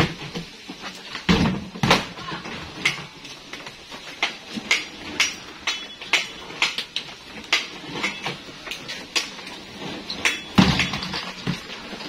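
Irregular sharp knocks and clatter of hollow plastic washing-machine scrap being handled and stacked, with heavier thuds just over a second in, at about two seconds, and near the end.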